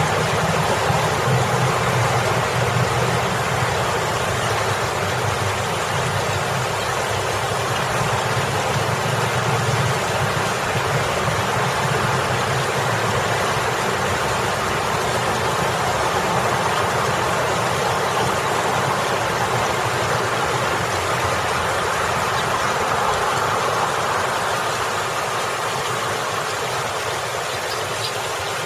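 Water pouring over a boulder fountain, a steady splashing rush, mixed with vehicle engines idling in traffic. The low engine hum is strongest in the first ten seconds or so and then fades, leaving mostly the water.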